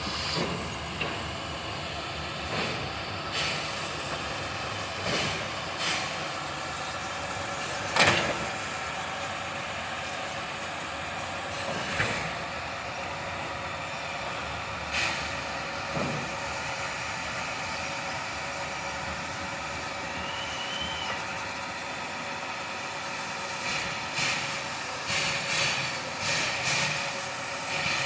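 Steam locomotive standing on a depot turntable: a steady mechanical hum and hiss with several constant tones, broken by irregular short metallic knocks and clanks. One loud clank comes about a third of the way in, and a quick run of knocks comes near the end.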